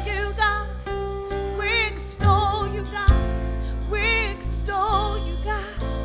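Live contemporary worship band playing, with a singer holding long wavering notes over keyboard, guitar and steady low bass.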